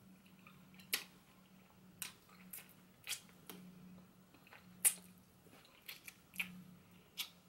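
Close-up eating sounds from gnawing and sucking on grilled chicken feet held in the fingers: a string of sharp, wet lip smacks and sucking clicks, the loudest about five seconds in, with soft chewing between them.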